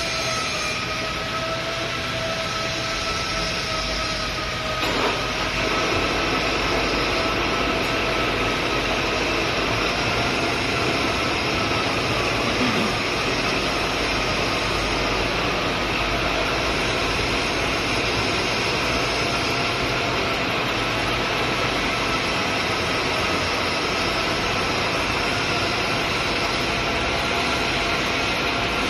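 Metal lathe spindle starting up with a click about five seconds in, then running steadily with its four-jaw chuck turning a steel stud bar: a dense mechanical whir with a hiss over it.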